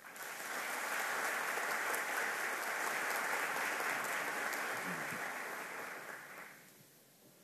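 Audience applauding. The clapping starts at once, holds steady, and dies away about six and a half seconds in.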